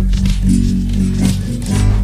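Instrumental rock music: a bass line and drum track playing under strummed guitar, with no singing.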